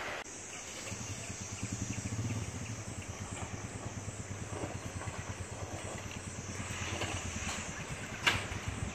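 Royal Enfield Himalayan's single-cylinder engine running at low speed with a steady, even beat as the motorcycle rolls slowly over a suspension bridge's metal-grating deck. A single sharp knock comes about eight seconds in.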